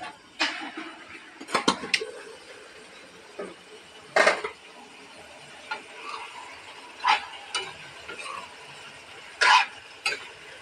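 A metal spoon stirring and scraping vegetable masala in an aluminium kadhai, with an irregular run of sharp metal clinks against the pan and its lid.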